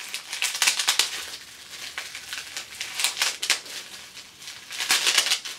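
Clear plastic packaging crinkling as it is handled and worked open, in irregular rustling spells: one about a second in, one around three seconds, and one near the end.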